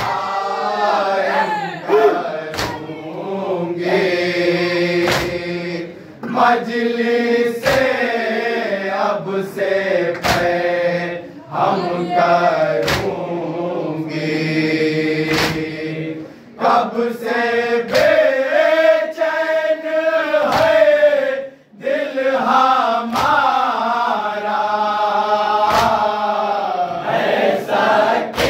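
A group of men singing an Urdu noha (mourning lament) together in long, drawn-out lines. A sharp chest-beat (matam) lands about every two and a half seconds.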